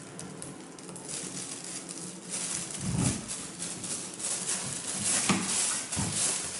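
A cat rubbing its head and body against the phone recording it. Rustling and rubbing noise on the microphone, with a few dull bumps about three seconds in and again near the end.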